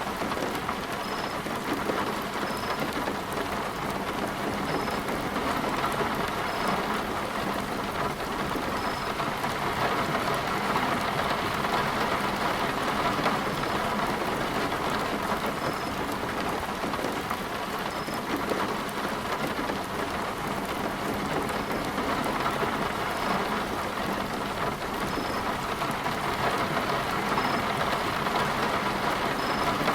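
Heavy rain falling steadily, a dense hiss of drops that keeps an even level throughout, during a severe thunderstorm.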